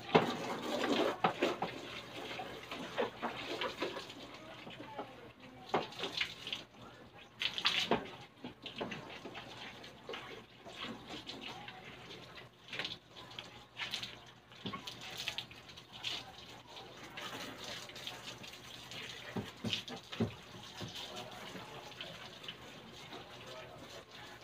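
Water from a garden hose splashing over a motorbike as it is washed, with irregular splashes and knocks.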